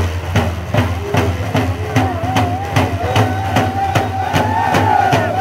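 Hand-game drummers beating round hand drums in a steady, fast rhythm of about three beats a second. Voices join in a wavering chanted song about two seconds in.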